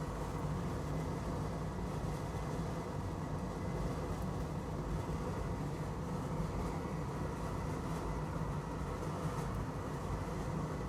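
Fume extractor fan running steadily beside a soldering bench, a constant rushing hum.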